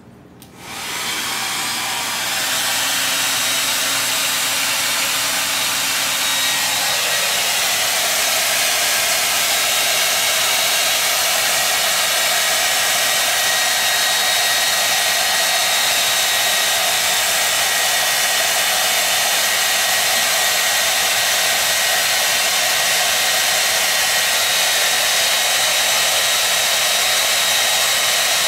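Handheld hair dryer starting up about half a second in, then blowing steadily; its low motor hum drops away about six or seven seconds in, leaving an even rush of air.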